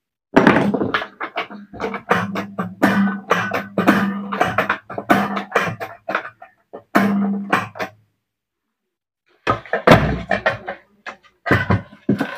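Metal parts of an electric rice cooker knocking and clattering as it is handled and put back together, with irregular sharp knocks over a low steady hum. The knocking stops for about a second and a half some eight seconds in, then starts again.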